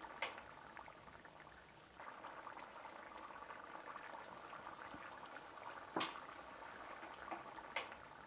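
Pot of rooster-bone soup with ground masala bubbling at the boil, a faint crackle of bubbles with three sharp pops.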